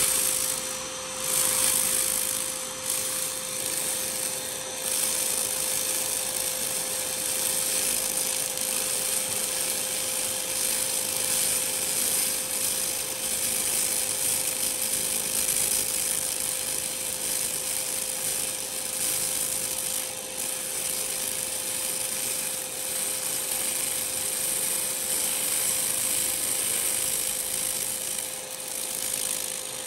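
100 W laser cleaner ablating marine organic growth off a nickel-aluminium-bronze boat propeller: a steady, even hiss with a constant tone underneath.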